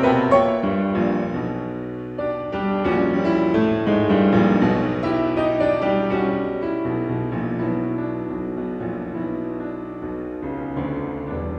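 Background piano music, a slow melody of changing notes.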